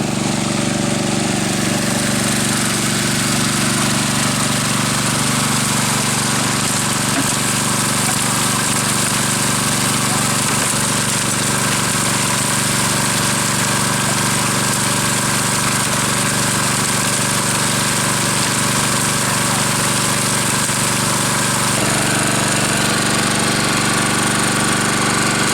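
Small gasoline engine of a 2-inch highbanker dredge running steadily at working speed, driving the pump, over a constant hiss of rushing water. The engine note shifts slightly near the end.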